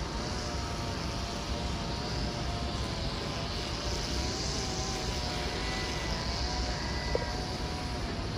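A Sydney Trains Waratah double-deck electric train running away into the distance: a steady hum with a few slightly wavering tones over a low rumble.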